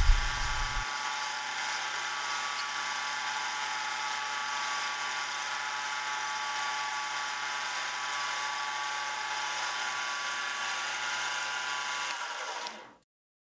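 Mini lathe running steadily with a high whine from its motor and gears while a carbide tool takes a facing cut on a small brass part; the sound fades out near the end.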